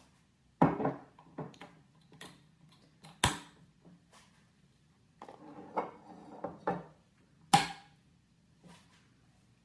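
Glass swing-top bottles and a funnel being handled and set down on a countertop: three sharp knocks among lighter clinks and clicks.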